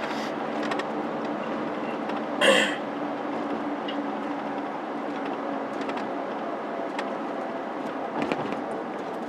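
Steady road and engine hum of a car heard from inside the cabin while driving, with one brief cough-like sound about two and a half seconds in.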